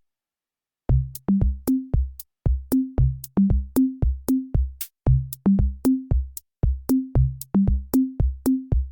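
Background music in a beat-only break: after about a second of silence, a drum-machine beat of deep kick-drum hits and short pitched drum thuds comes in, with faint high ticks over it and the melody dropped out.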